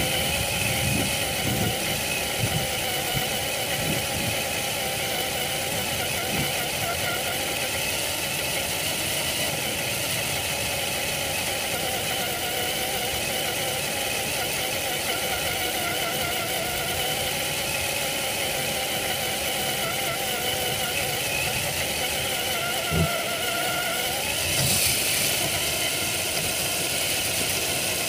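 Traxxas TRX-4 RC crawler's electric motor and gearbox whining steadily as it drives over grass, the pitch wavering slightly with speed, picked up by a camera mounted on the truck. A single sharp knock about 23 seconds in.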